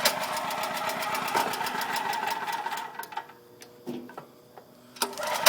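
Champion 4000-watt portable generator's engine being pull-started on choke for its first run: about three seconds of rapid, even chugging that then dies away, and another pull near the end. The owner afterwards thinks it may not need the choke.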